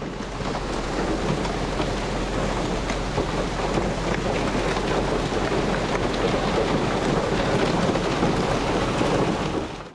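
Hail coming down steadily: a dense patter of small, pea- to dime-sized stones hitting the ground.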